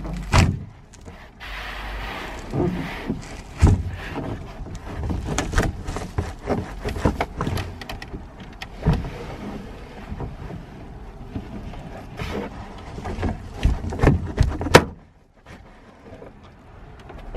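Irregular clicks, knocks and rustling as a car's roof headliner is pulled down and worked forward to release its retaining clips, heard inside the cabin. The knocking stops about fifteen seconds in.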